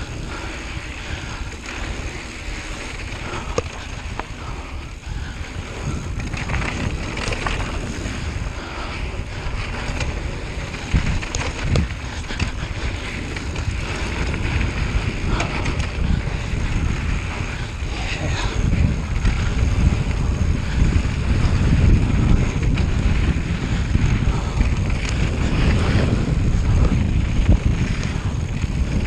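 Wind buffeting the microphone during a descent, a steady rumbling noise with scattered clicks and rattles, growing louder about two-thirds of the way through.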